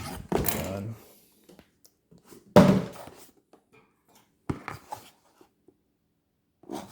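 Unboxing handling of a boxed airsoft pistol's packaging: a few scattered knocks and thumps with quiet between them, the loudest about two and a half seconds in and a sharp knock about four and a half seconds in.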